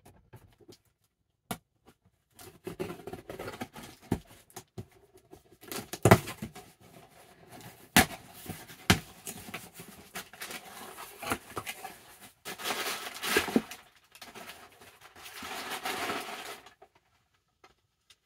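Cardboard shipping box opened by hand: tape pulled off and flaps and contents rustling in bursts, with a few sharp knocks against the box, the loudest about six and eight seconds in.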